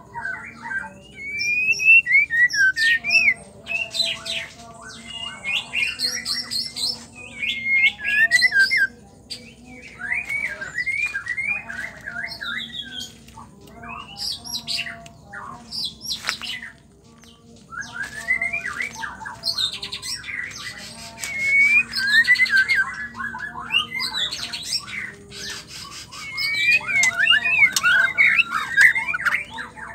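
White-rumped shama singing vigorously: a fast run of varied whistled and chattering phrases, with a brief pause a little past halfway.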